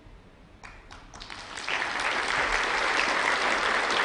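Audience applause: a few scattered claps about half a second in, swelling within the next second into steady, full applause.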